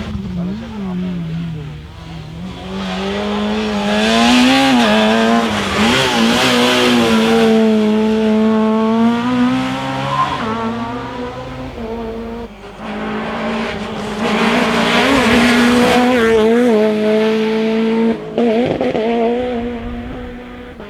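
Rally car engine at full throttle on a closed stage, its pitch rising and falling with the throttle and gear changes as it comes past. It swells to its loudest twice, with a brief drop in between.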